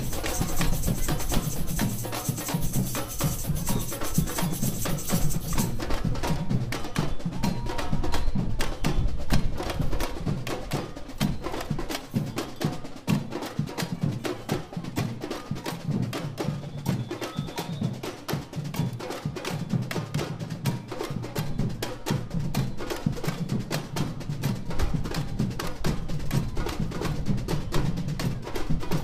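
Samba bateria drumming: a street samba band's surdo bass drums and other percussion playing together in a steady, fast, driving rhythm.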